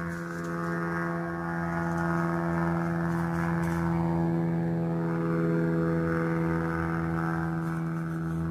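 Propeller airplane engine droning steadily, with a slow wavering in its higher tones.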